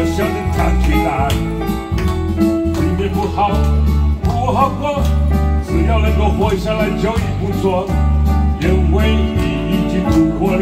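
Live song on an electronic keyboard, with a steady bass line and beat and a man singing into a microphone over it.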